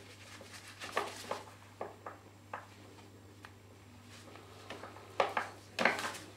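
Scattered light clicks and taps of a hand tool working on green-and-yellow earth cable while the insulation is stripped from its end, the two loudest about five and six seconds in.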